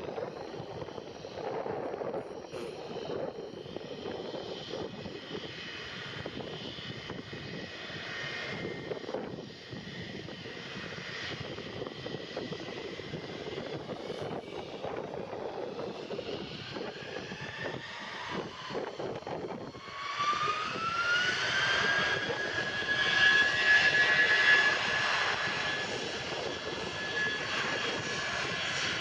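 Airbus A320 jet engines running at low power, then, about two-thirds of the way through, a rising whine as they spool up to takeoff thrust and the noise grows much louder.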